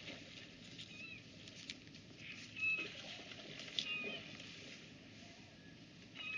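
Steady rush of river water with short, high calls from gulls, the loudest a little under three seconds in and again about a second later.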